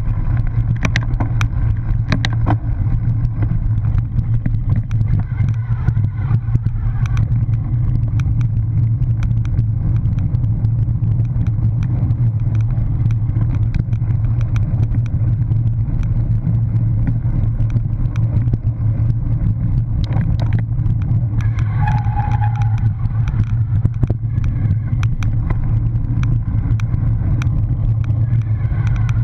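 Riding noise of a cyclocross bike picked up by a mounted action camera: a steady low rumble of wind and vibration on the microphone, with constant rattling clicks as the bike runs over grass and a rough, leaf-covered dirt trail.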